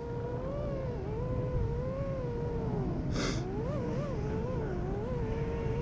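FPV quadcopter's brushless motors and propellers whining, the pitch rising and falling with the throttle over a low rumble. A brief hiss about three seconds in.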